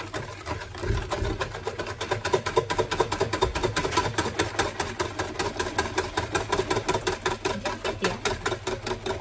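Hand whisk beating quickly against a bowl, about eight strokes a second, mixing the custard base for a flan.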